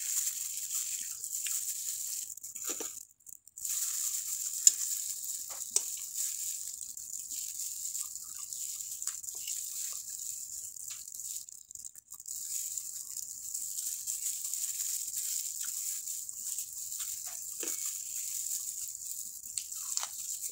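Soft eating sounds: faint clicks and rustles of plastic-gloved fingers picking apart a fried tilapia, and chewing, over a steady high hiss. The sound drops out almost completely twice, about three seconds in and again about twelve seconds in.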